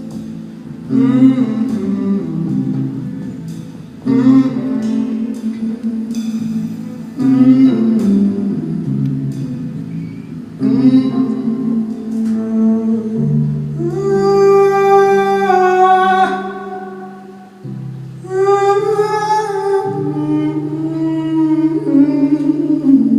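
Live song: a guitar playing phrases that start every few seconds. From about halfway through, a voice joins with long, wordless sung notes.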